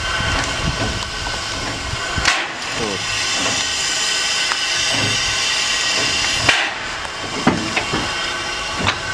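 Kč4 narrow-gauge steam locomotive standing with steam hissing steadily, broken by a few sharp knocks.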